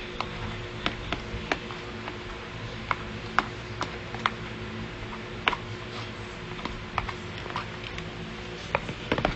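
Metal spoon stirring sticky slime in a clear plastic tub, clicking and tapping against the tub's sides at an irregular pace of a few clicks a second.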